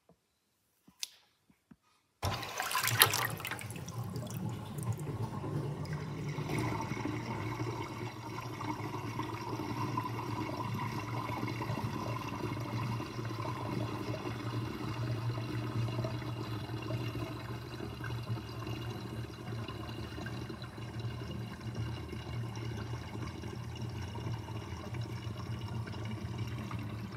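Water draining through a kitchen sink drain basket, gurgling steadily. It starts suddenly about two seconds in, after near silence.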